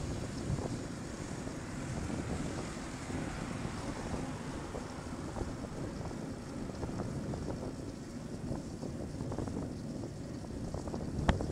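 Wind buffeting a bike-mounted camera's microphone while cycling, over a steady low rumble of the ride and road traffic. A sharp knock sounds near the end.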